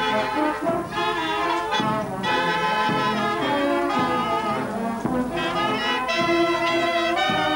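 Marching town band playing as it walks, with clarinets and brass sounding together in a steady run of notes.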